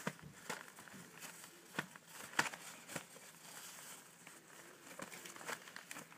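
Paper towel and newspaper lining crinkling and rustling in irregular small crackles and taps as African grey parrot chicks shift about on it.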